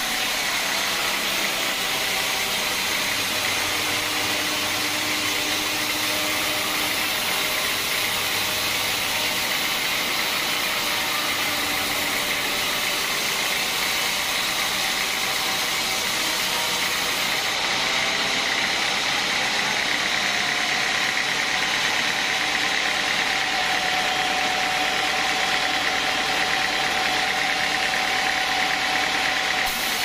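Sawmill band saw running steadily as its blade rips lengthwise through a knotty teak log, a constant loud machine noise with a faint high whine.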